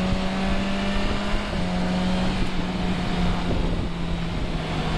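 Motorcycle engine running at a steady cruising speed under a constant rush of wind and road noise. The engine note rises slightly about a second and a half in and eases back near the end.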